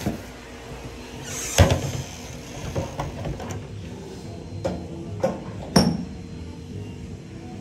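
Weight plates clanking against the steel loading sleeve of a plate-loaded leg press, a string of sharp knocks with the loudest near six seconds in, over a steady low hum.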